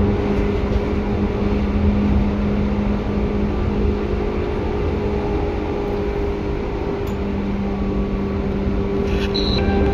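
Running noise inside a Seibu 2000 series electric commuter train: a steady low rumble with a steady hum. A few short, faint high tones start near the end.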